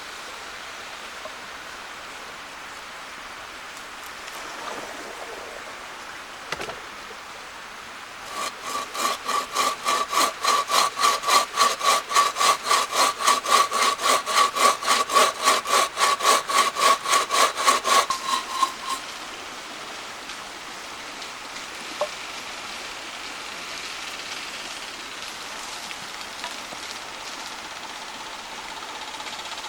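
Hand saw cutting through wood in fast, even strokes, about four a second, with a ringing note from the blade. The sawing starts about eight seconds in and stops after about ten seconds.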